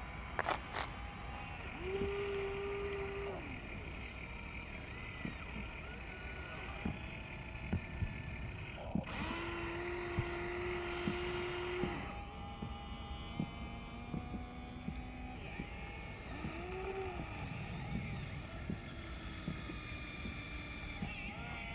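Huina 1593 RC excavator's small electric motors whining in several spells as it swings its cab and works its arm and bucket, each whine steady with a short rise and fall at start and stop, the longest about three seconds. Scattered small clicks and knocks.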